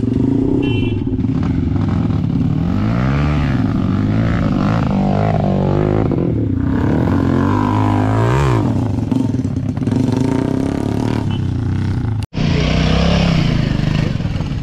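Enduro dirt bike engine running hard, revving up and back down twice as the throttle is worked. The sound cuts out for a moment about twelve seconds in.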